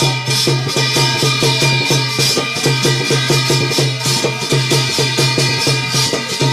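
Instrumental passage of Garhwali jagar folk music: a fast, even drum rhythm with jingling, rattling percussion over a few held tones, no singing.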